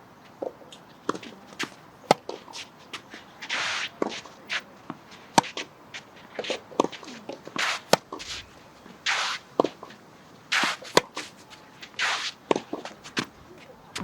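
Tennis singles rally: sharp pops of racket strings striking the ball and the ball bouncing, a loud hit every second or two. Between them come quick footsteps and short scuffs of shoes sliding on the court.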